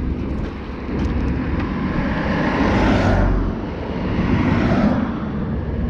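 Road traffic passing by: a vehicle whooshes past, loudest about three seconds in, followed by a second, weaker pass that fades out near the end.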